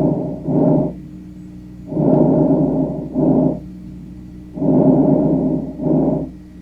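Recorded human breath sounds from the chest, used for teaching. A longer noisy breath sound runs straight into a shorter one, and the cycle repeats about every two and a half seconds. A faint steady hum shows between breaths.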